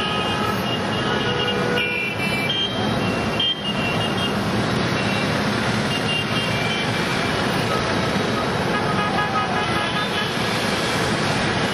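Busy road traffic, with motorcycles, auto-rickshaws and cars running through a city junction as a steady drone. Horns toot briefly now and then, several near the start and a few more near the end.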